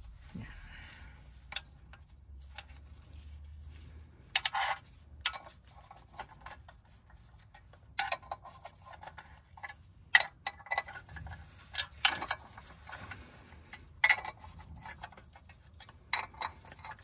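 Irregular metal clicks and knocks as a new clutch pressure plate is handled and seated against the flywheel.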